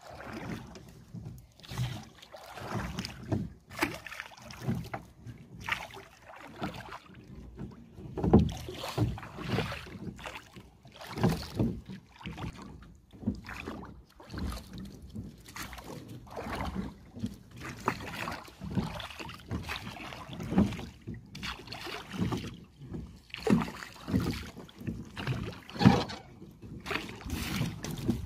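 Small rowboat being rowed with oars: uneven strokes about every one to two seconds, each with a splash of water and a knock of wood and metal.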